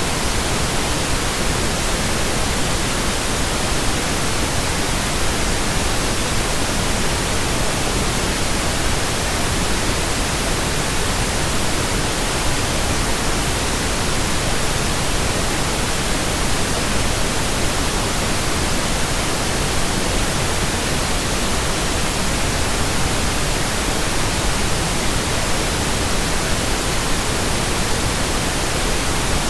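Steady generated pink noise: an even, unbroken hiss with no tones or changes.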